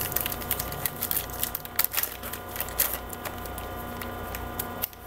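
Baseball trading cards being handled and sorted by hand: a string of quick light flicks, clicks and rustles, irregular in spacing, over a steady electrical hum.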